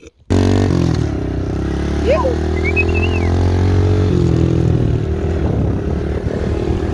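Motorcycle engine running steadily, cutting in suddenly just after the start.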